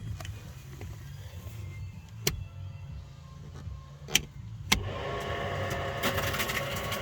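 A few sharp clicks, then from about five seconds in a boat's electric power trim motor running steadily, showing that the trim works on the battery.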